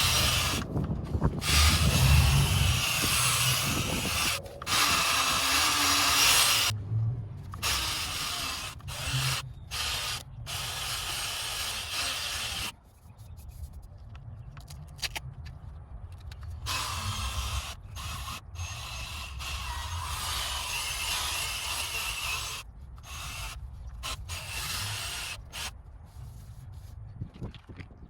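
Drill-driven sanding disc running against a plastic headlight lens, stopping and restarting several times. It is loud for about the first 13 s, then drops suddenly to a quieter, on-and-off running.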